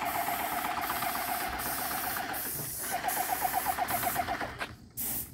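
Airless paint sprayer running: the pump's rapid rhythmic chatter over a steady hiss of spraying. It pauses briefly about two and a half seconds in, then runs again before dropping away near the end.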